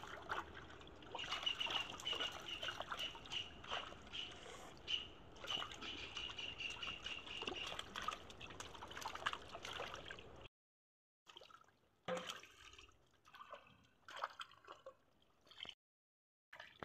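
Fish splashing and flapping in shallow water crowded inside a hand-held net, with irregular sloshes and drips as hands scoop among them. A high, rapid chirping runs through the first half. About ten seconds in the sound cuts out, then returns only in short patches of splashing.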